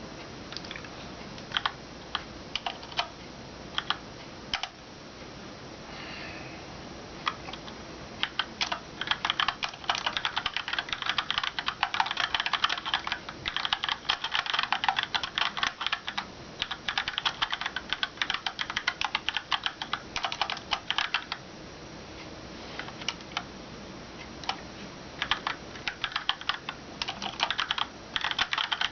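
Keychron K2 mechanical keyboard with Gateron Brown tactile switches and ABS keycaps being typed on. Scattered single keystrokes for the first several seconds, then fast continuous typing through the middle, slower presses again, and a quick run of typing near the end.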